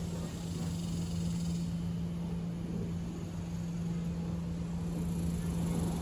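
Wind blowing through banana tree leaves, with a rough low rumble of wind and a steady low hum underneath.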